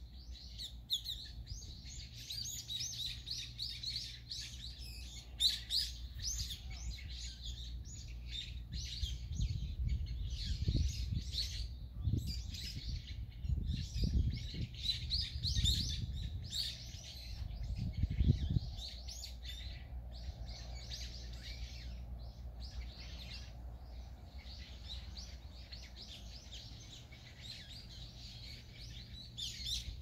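Many small birds chirping and calling over one another in quick, high notes. Underneath, a low rumbling comes and goes, strongest in the middle.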